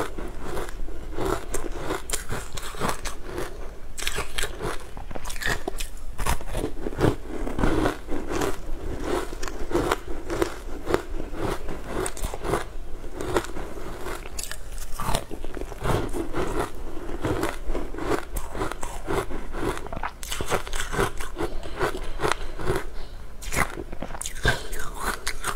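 Close, crisp crunching and crackling of a crumbly frozen green food being bitten and chewed, a dense run of irregular crunches with no pause.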